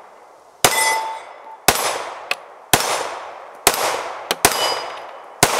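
IWI Masada 9S 9mm pistol fired six times at a slow, steady pace, about one shot a second, each report trailing off in echo. Between the shots come the fainter clangs and ringing of steel targets being hit.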